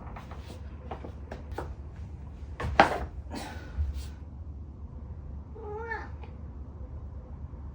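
A cat meows once, a short rising-then-falling call about six seconds in. Before it comes a run of sharp clicks and knocks, the loudest near three seconds.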